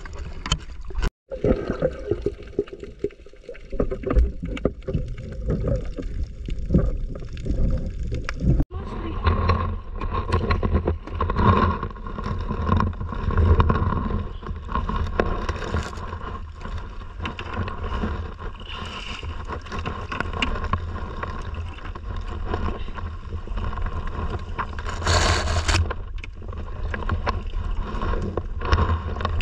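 Sound on board a small fishing boat at sea as the net is hauled in: wind and water noise over a low steady hum. The sound drops out sharply twice, about one second in and again near nine seconds.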